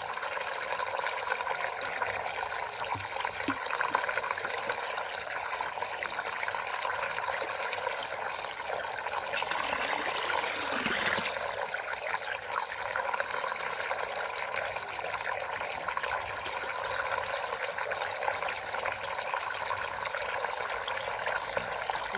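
Water draining through a hole in a large whirlpool vortex: a steady rushing, splashing swirl, with a brief louder surge about ten seconds in.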